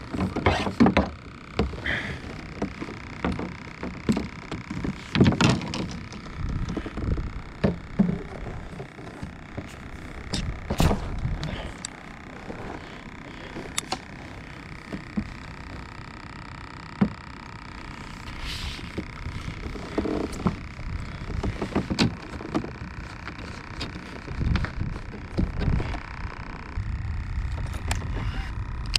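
Scattered knocks and clunks of a fishing rod and gear bumping against a plastic sit-on-top fishing kayak as the angler shifts about on the deck, over a low rumble of wind on the microphone.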